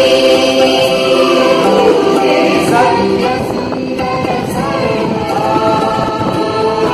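Recorded music with several voices singing long held chords that change every second or two.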